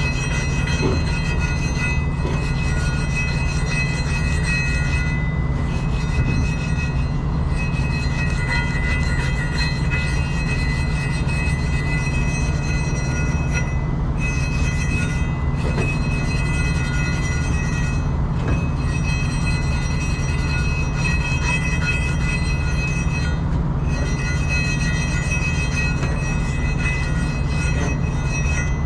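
Steady mechanical running noise: a constant low rumble with several high whining tones over it, never stopping.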